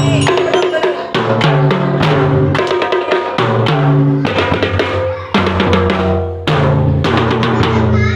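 A drum band rehearsing a tune: snare and bass drums beating in rhythm under a melody of held notes.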